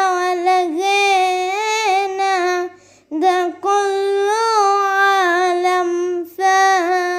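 A young, high solo voice singing an Arabic hymn in long held, wavering notes, with short breaks for breath about three and six seconds in.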